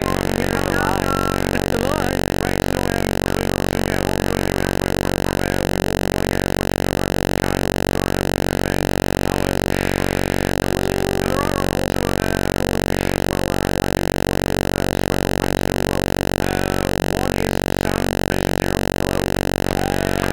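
A loud, steady buzzing drone with many evenly spaced overtones, unchanging throughout, with faint wavering sounds barely showing underneath.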